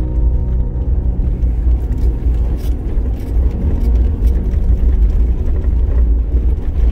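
A vehicle driving: a steady, deep rumble of engine and road noise.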